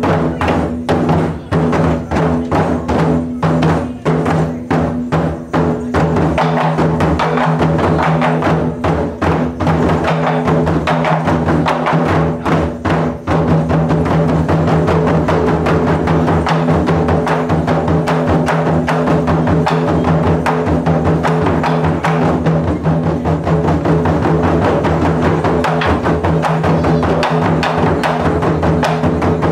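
Taiko drum ensemble playing: sharp, separate drum strikes in the first half, giving way about halfway through to a dense, fast, unbroken drumming.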